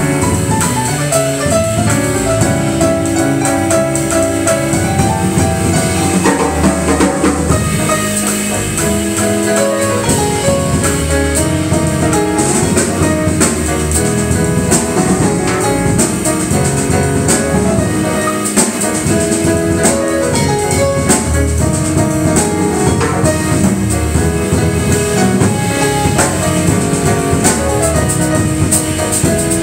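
A grand piano and a fretted electric bass play an instrumental jazz piece together, with piano chords and melody over a moving bass line.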